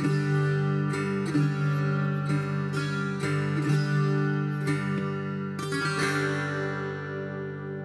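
Viola caipira, the ten-string Brazilian folk guitar, played solo in Rio Abaixo tuning: plucked melody notes over ringing open strings. It ends on a chord about six seconds in that rings out and fades.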